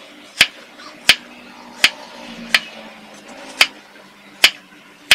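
Kitchen knife slicing through a lotus root and knocking on a wooden cutting board: about seven sharp knocks at a steady pace, roughly one every three-quarters of a second.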